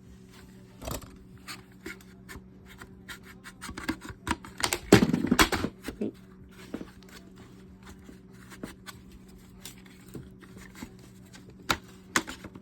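Plastic guard being pushed and snapped onto the head of a Bauer 20 V cordless string trimmer: scattered clicks and scrapes of plastic on plastic, with a denser run of knocks and rubbing about five seconds in as it is forced into place.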